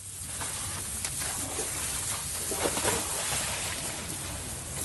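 Hose water spraying onto an elephant and the wet mud around it: a steady hiss with a few splashes and slaps of mud, the loudest about halfway through.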